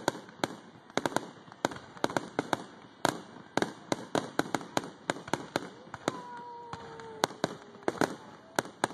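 Fireworks going off in quick, irregular sharp bangs, several a second. Partway through, a steady tone slowly falls in pitch for about a second and a half.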